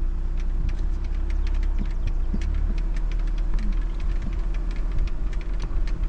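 Vehicle driving slowly along a field: a steady low rumble and hum, with scattered light clicks and rattles.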